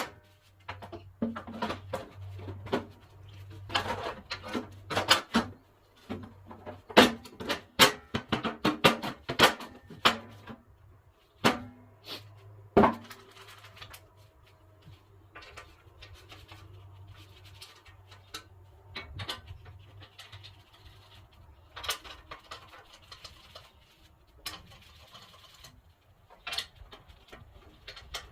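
Irregular clicks and knocks of hand tools and metal parts, thick at first and sparser later, over a steady low hum that stops about twelve seconds in.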